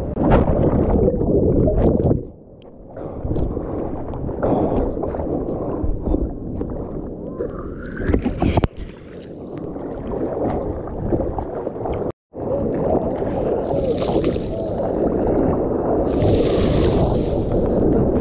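Surf and whitewater rushing and splashing around a water-level action camera, with wind buffeting the microphone. The sound drops sharply for a moment about two seconds in and cuts out completely for an instant about two-thirds of the way through.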